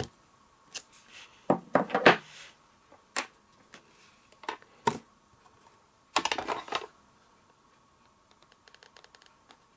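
Clicks and knocks of a mounted rubber stamp block being inked on an ink pad and pressed onto cardstock on the table, in a few separate handling bursts, with a quick run of light taps near the end.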